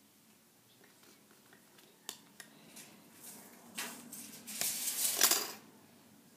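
A few small clicks, then a couple of seconds of paper rustling and crackling as a small stapled booklet of paper pages is handled and picked at before its staples are pulled out.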